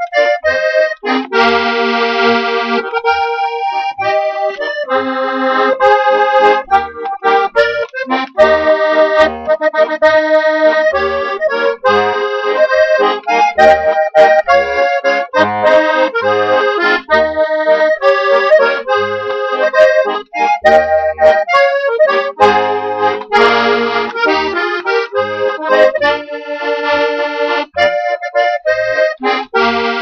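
Slovenian Franc Cimperman diatonic button accordion (Steirische harmonika), tuned in B-flat, E-flat and A-flat, playing a waltz: a melody in full reedy chords over short, regularly spaced bass notes.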